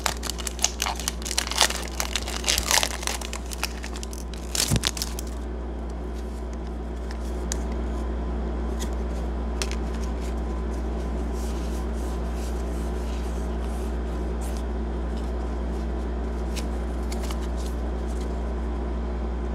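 Foil booster pack of Pokémon cards being torn open and crinkled, a dense crackle for about the first five seconds. After that come only scattered light clicks of the cards being handled and flipped, over a steady low hum.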